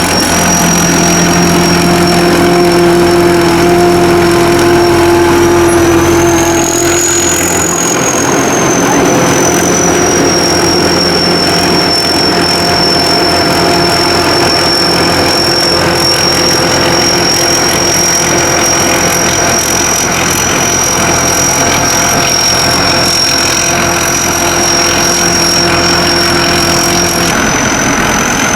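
Sakpattana SS-200 mini combine harvester running, its engine and machinery going steadily under a high, constant whine. The engine note shifts about seven seconds in and again near the end.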